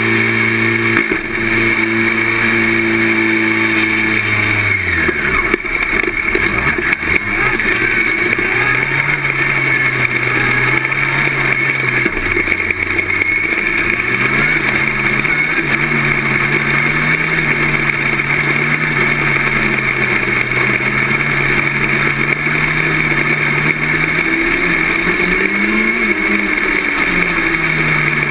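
Mini sprint race car engine running hard, heard from inside the open cockpit while lapping a dirt oval. The engine note falls away about five seconds in, then holds fairly steady on the throttle with brief dips and wavers, as it comes off and back onto the power through the turns.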